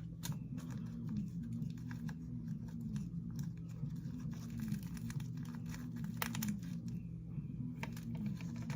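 Scattered small clicks, taps and crinkles of hands handling a plastic slime tub and laying its topping and sprinkles onto the slime, over a steady low hum.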